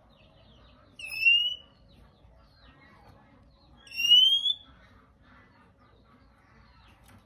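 Male oriental magpie-robin giving its shrill 'rít khè' screech: two loud rising whistled calls about three seconds apart, with faint twittering between.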